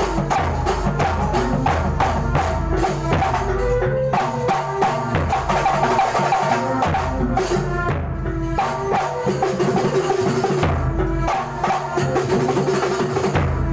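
Kuntulan music: frame drums and other percussion play a fast, steady rhythm of about four to five strokes a second under a melodic line. A heavy low bass drops out briefly three times.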